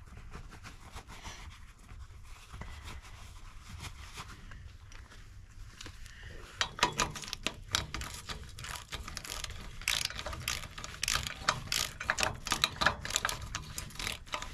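Socket ratchet wrench clicking in quick runs as it turns the nut on the underside of a trailer ball coupler, starting about halfway through; before that only faint handling noise.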